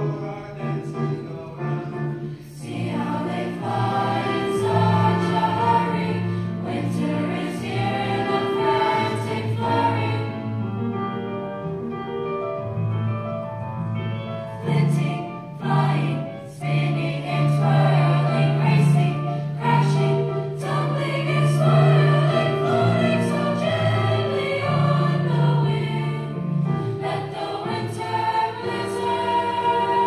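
A middle school chorus singing together in several voice parts, holding sustained notes in a choral winter song.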